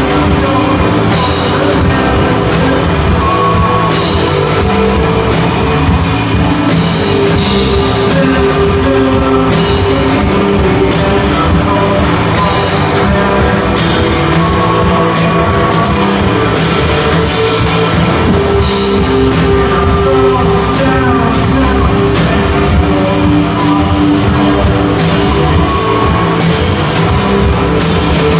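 Live rock band playing loudly: a drum kit keeps a steady driving beat under electric guitar, bass guitar and held notes.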